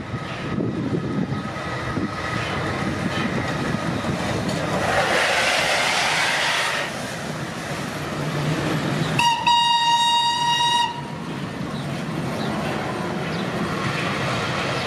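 Steam train rumbling and clattering past on the rails, with a broad rush of hiss about five seconds in. Near the middle, a single-note whistle blows once for nearly two seconds.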